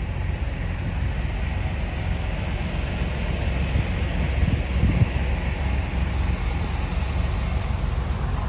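Steady low rumble of parked semi-trucks' diesel engines idling, mixed with wind buffeting the microphone.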